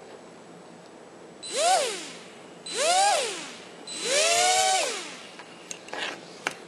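Micro quadcopter's four 6 mm Micro Motor Warehouse 'Fast' brushed motors spinning their propellers up three times. The whine rises and falls in pitch with each throttle blip, and the third is held about a second. A few light clicks come near the end.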